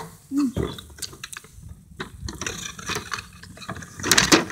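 Cardboard candy box being handled and pulled open: irregular small clicks and crinkles, with a louder rustle about four seconds in.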